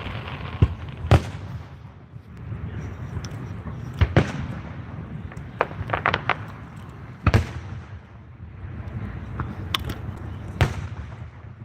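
Aerial fireworks bursting in a series of sharp bangs every second or two, some in quick pairs, with a run of quicker pops about six seconds in, over a low continuous rumble.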